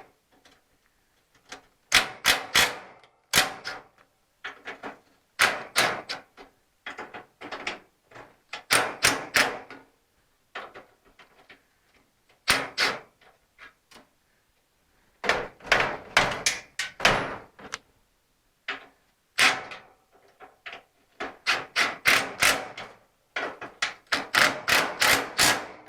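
Hand tools working on a car's hood hinge hardware: bursts of sharp metallic clicks and knocks, several quick strokes at a time with short pauses between.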